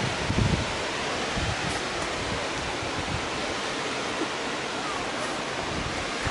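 Steady rushing of waterfalls and cascading water, an even hiss with no rhythm. Wind buffets the microphone briefly in the first half second.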